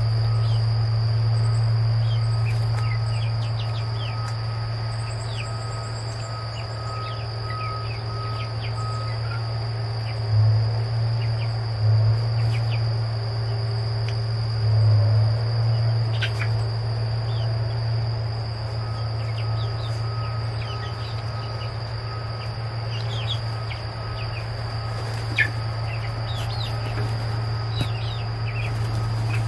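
Young chickens giving short, scattered peeps over a steady high drone of insects, with a constant low hum underneath that is the loudest sound.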